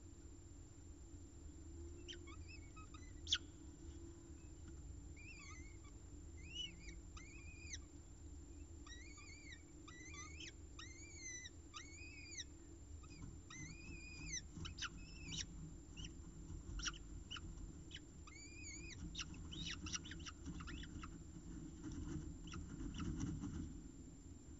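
Peregrine falcon chicks being fed, giving a long series of short, thin calls that rise and fall in pitch, coming in runs of several at a time: food-begging calls. There is one sharp click about three seconds in, and low shuffling near the end.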